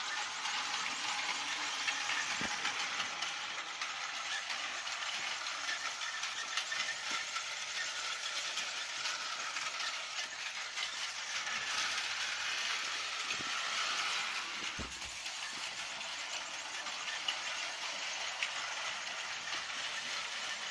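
A battery-powered Tomy toy train running, its small motor and plastic gears making a steady whirring with a fine, continuous clicking rattle.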